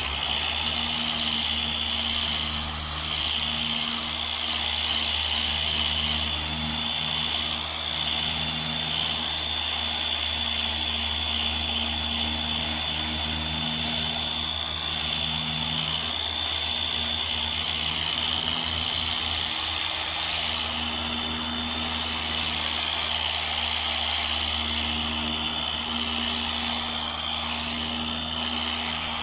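A handheld power sanding tool running steadily against a car's steel body panel with a high whine, abrading old paint and surface rust down toward bare metal. A steady low hum runs underneath.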